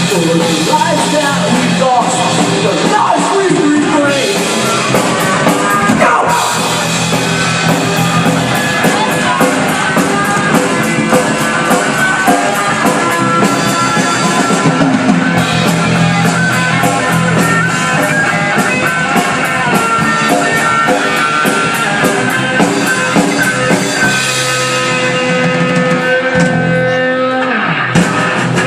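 Live rock band playing an instrumental passage on electric guitars and drum kit, with a steady beat and a brief break near the end before the band comes back in.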